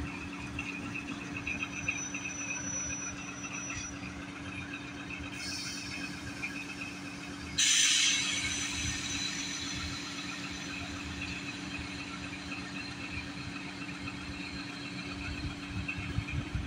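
Diesel switcher locomotive idling with a steady engine drone. A short hiss comes about five seconds in, then a sudden, louder hiss about eight seconds in that fades over a couple of seconds.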